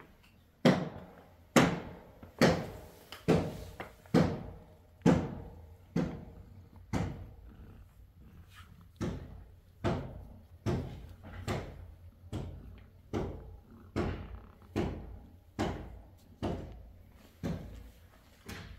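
A steady beat of knocks, a little more than one a second, each ringing briefly before the next.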